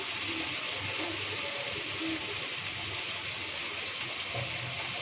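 Onions and capsicum sizzling steadily in ghee in a pan, with soy sauce just added.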